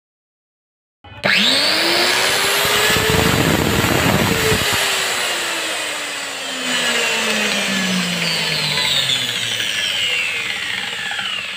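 A 7-inch Makita angle grinder's brushed motor with a freshly replaced commutator switches on about a second in and whines up to speed over a few seconds. Its pitch then falls slowly as it winds down. It runs smoothly, without sparking at the brushes.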